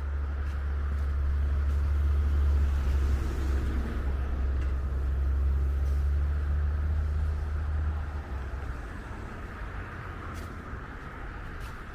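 A large motor vehicle on the street running close by with a deep engine rumble that swells and then fades away about eight seconds in.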